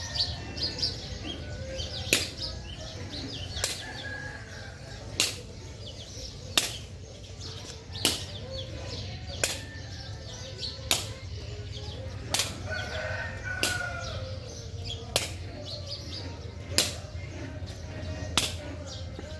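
Sharp slaps or strikes repeating evenly, one about every second and a half, over a steady low rumble.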